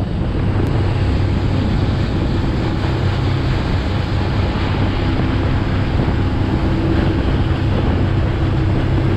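Inflatable boat's engine running at a steady speed, a low, even drone, mixed with rushing water against the hull and wind buffeting the microphone.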